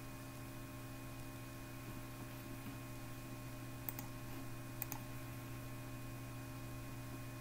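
Steady low electrical hum with a few constant tones, broken by two quick computer-mouse clicks about four and five seconds in.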